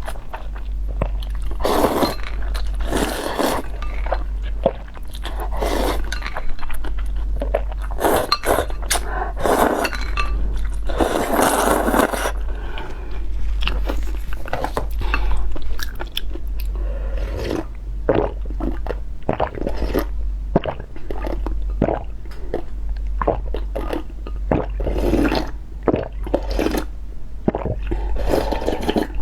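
Close-miked eating: crunchy bites and chewing, full of sharp crackles and clicks, over a steady low hum.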